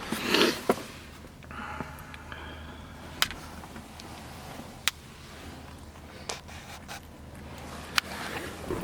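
Quiet handling noise inside a car cabin, with a few sharp, separate clicks spread through it, the clearest about three, five and eight seconds in.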